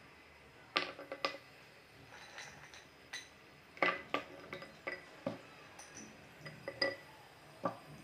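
Hard grey chunks of roasted nakumatt dropped into a clear plastic bowl of water, knocking against each other and the bowl. They make irregular sharp clinks with a brief ring, some in quick clusters, about a dozen in all.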